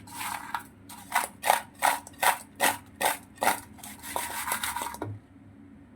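Small ginger-jaggery candy balls being mixed around in powdered sugar: a run of rhythmic rubbing, scraping strokes, about two or three a second, that stops about five seconds in.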